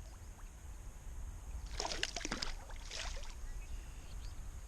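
Water splashing in two short bouts from a hooked bass thrashing at the surface as it is played in beside a kayak, over a steady low rumble.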